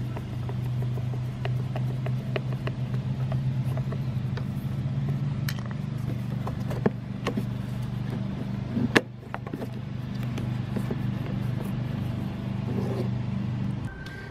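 Scattered light clicks and knocks of a screwdriver and the air cleaner cover being worked loose on a 5 HP Briggs and Stratton engine, with one sharp click about nine seconds in. Under them runs a steady low hum that stops near the end.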